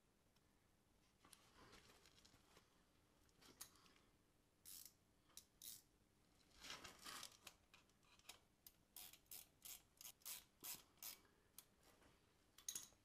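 Ratchet wrench being worked back and forth in short rasping strokes, a few at first and then a steady run of about two a second, as bolts are run in.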